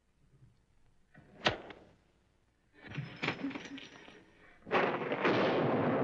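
Sound effects from a 1940s film soundtrack: a single sharp bang about one and a half seconds in, a short burst of scuffling noise around three seconds, then a loud, sustained rumble of thunder that begins near the end.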